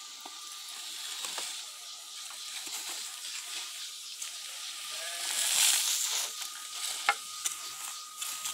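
Cut weeds and grass rustling and scraping as they are raked off bare dirt and piled into a wheelbarrow, with a louder rustle about halfway through and a sharp knock about seven seconds in.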